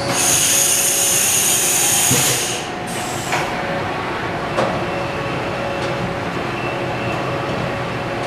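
Haas VF-2 Super Speed CNC vertical machining center running. For the first three seconds there is a loud hiss with a high whine, which then stops. After that comes a steady machine hum with a couple of short clicks.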